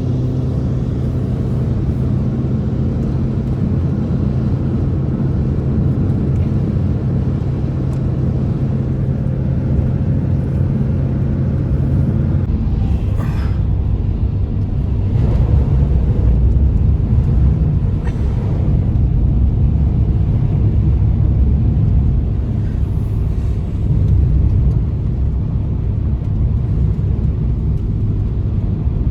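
A loud, steady low rumble. For the first twelve seconds a steady low hum with overtones runs through it, then it turns rougher and noisier for the rest.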